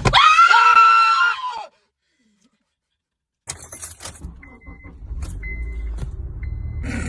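A loud high-pitched scream that cuts off abruptly, then dead silence. After that come a few clicks, a short high beep about once a second, and a car's low, steady engine rumble that builds from about halfway through.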